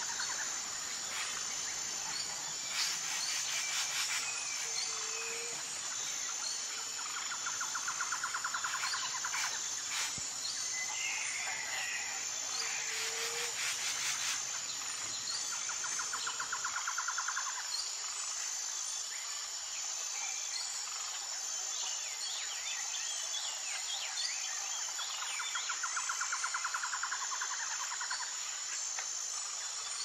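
Forest ambience: a steady high insect drone with recurring pulsing insect trills every several seconds and a few short bird chirps near the middle.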